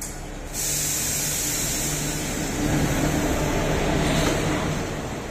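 Passenger train running past close along a station platform: a loud rush of noise starts suddenly about half a second in, over a steady low hum, and is loudest about three to four seconds in before easing off.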